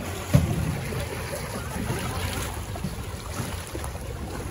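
Canoe paddles splashing and pulling through shallow river water as a two-person canoe passes close by, with wind buffeting the microphone. A single sharp thump comes about half a second in.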